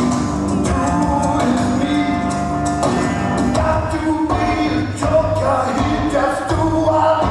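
Recorded 1960s rock-and-roll music with singing and a steady drum beat.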